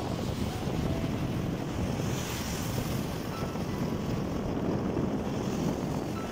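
Steady wind noise buffeting the microphone of a moving vehicle, with road and traffic noise beneath it.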